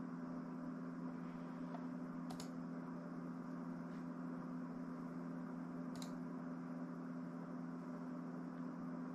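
Steady low hum with a faint hiss, broken by two short, sharp clicks about three and a half seconds apart.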